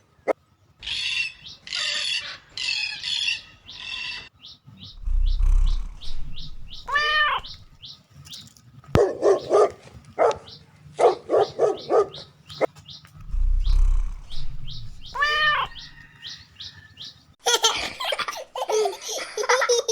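Pet birds chirping and calling: runs of quick short chirps mixed with longer rising-and-falling calls, the same sequence heard twice.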